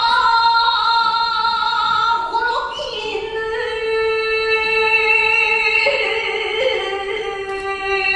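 Shigin poetry chanting: a solo voice holds long, slowly wavering notes that shift in pitch only a few times, dropping to a lower note about two and a half seconds in.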